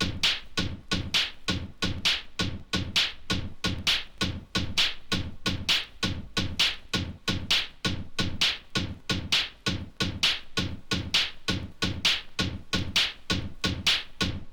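Electronic techno track: sharp percussive hits in a fast, steady rhythm of about four a second, each with a low thud and a bright click.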